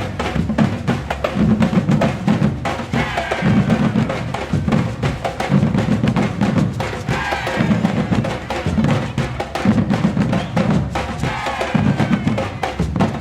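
Batucada drum ensemble playing a fast, driving Afro-Brazilian groove: deep bass drums pulse about once a second under dense snare and hand-drum strokes.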